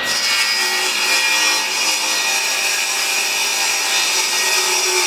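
Electric power saw cutting through wood, a steady, even saw noise that holds level without a break.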